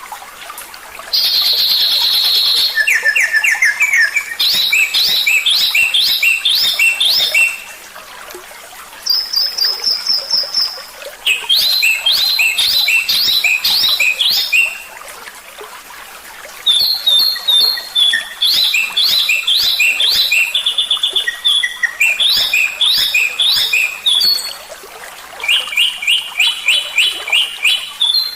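Recorded songbird song of the kind played as a masteran training track for caged songbirds. It comes as bursts of fast trills and rapidly repeated high chirps, each phrase a couple of seconds long, with short pauses between.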